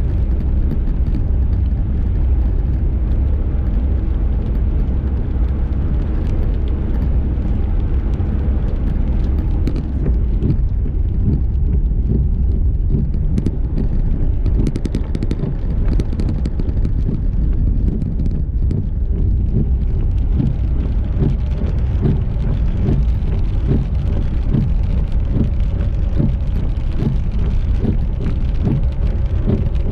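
Car driving: a steady low rumble of engine and tyres, with frequent small irregular knocks.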